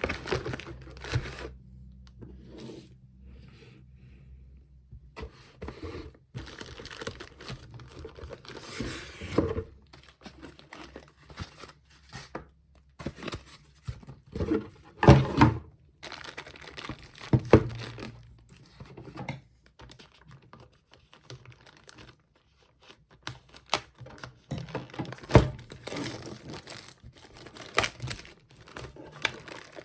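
Packaging being handled: crinkling, rustling and tearing, broken by irregular knocks and thumps. The loudest come about halfway through and again near the end.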